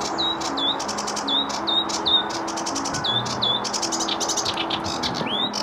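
Sedge warbler singing: a rapid run of clicks and short hooked whistled notes repeated over and over, breaking into denser, faster trills about four seconds in. The phrases keep changing, as this species strings random phrases into its song.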